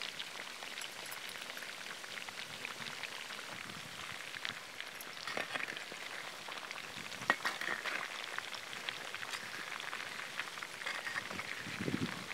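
Batter-coated chicken pieces deep-frying in hot oil: a steady crackling sizzle full of small pops, with one louder crack about seven seconds in.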